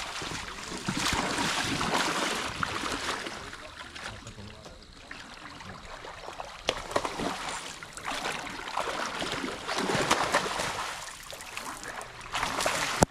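River water splashing and sloshing in irregular surges a second or two long, with scattered sharp clicks.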